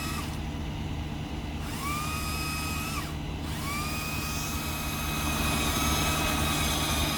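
Chainsaw revving up and cutting a branch in two stretches, a high whine that rises, holds and cuts off, over the steady drone of an idling truck engine.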